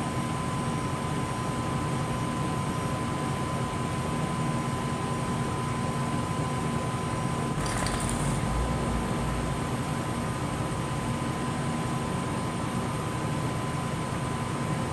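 Steady machine hum with a constant high whine running under it, and a brief rustle or bump about eight seconds in.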